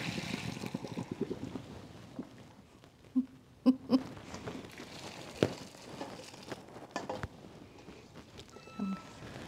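Hot water and spaghetti pouring out of a stainless steel pot into a colander in the sink, the splashing fading over the first couple of seconds. Scattered metallic knocks and clanks follow as the pot is tipped and shaken out, the loudest a pair of ringing clanks about four seconds in.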